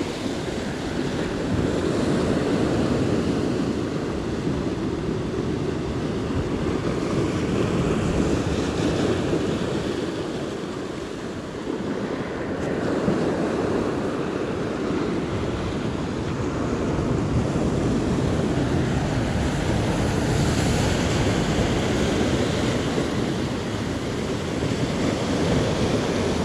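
Sea surf and wind on the microphone: a steady rushing that swells and eases every few seconds.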